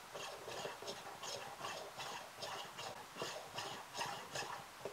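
Coffee distributor being twisted back and forth in an espresso portafilter basket to level the ground coffee: a rhythmic rubbing, about three short strokes a second.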